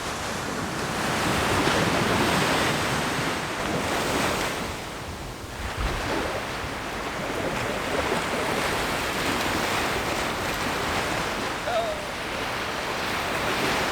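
Sea surf washing on the shore, with wind buffeting the microphone. The rush swells and eases, dipping briefly about five seconds in.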